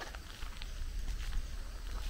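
Outdoor ambience: a steady low rumble of wind on the microphone, with scattered short high chirps and ticks.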